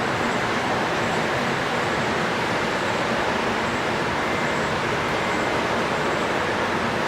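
Steady, even outdoor rushing noise with no single event standing out, and faint high chirps now and then.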